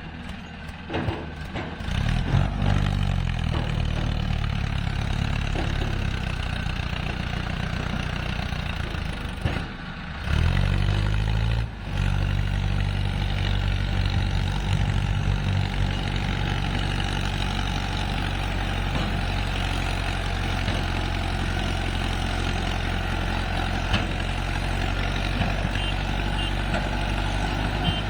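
Hyundai 245 LR Smart excavator's diesel engine running steadily under hydraulic load while digging and loading. It revs up about two seconds in and again about ten seconds in, after a brief drop.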